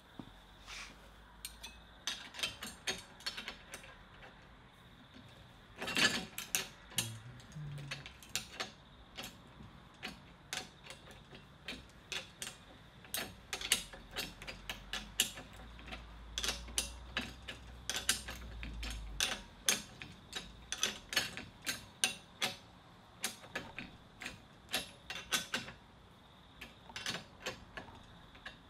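Spanners tightening a bolt and nylock nut on a steel grinder guard: sharp metal clicks and ratchet-like ticks in quick irregular runs with short pauses.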